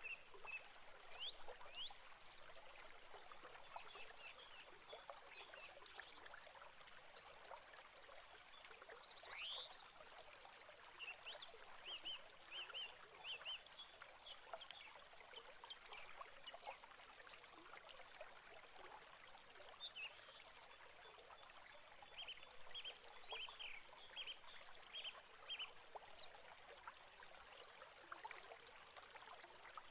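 Great tits in a nest box: faint, high, thin peeps and chirps come again and again, over a steady crackling rustle of nest material and hiss.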